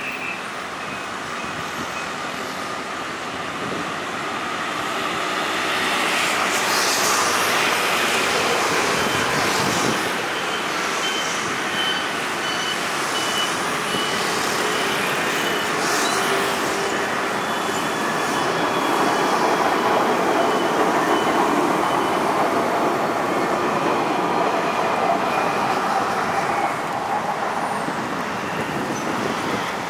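Alstom Citadis 305 light-rail tram approaching and rolling past on street track, with a rising and falling run of motor and wheel noise and a thin high tone that comes and goes over the middle stretch, over steady road traffic.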